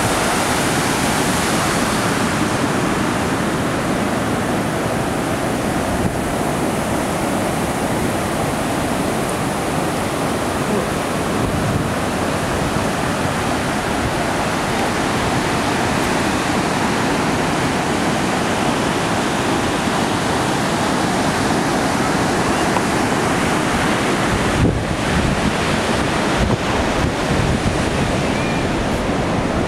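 Pacific Ocean surf breaking and washing up the beach in a steady rush. Wind buffets the microphone in gusts over the last few seconds.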